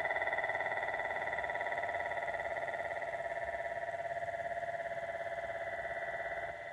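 Small DC motor whining steadily as it spins a CD disc, with a fast, even flutter; the level dips slightly near the end.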